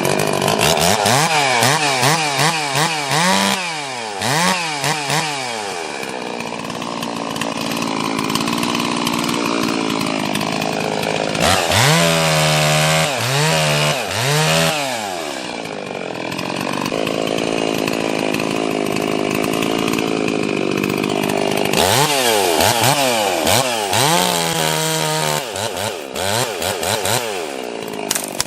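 Ported Stihl two-stroke chainsaw bucking a red cedar log: the engine is blipped up and down in quick revs, then held at a steadier, lower note while the chain is in the cut, in three spells.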